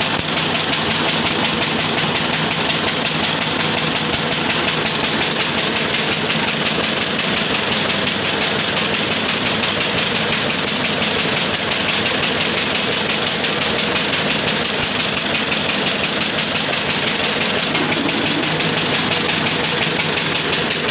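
12 HP single-cylinder stationary diesel engine running steadily at constant speed with an even, rapid beat, driving a rice huller.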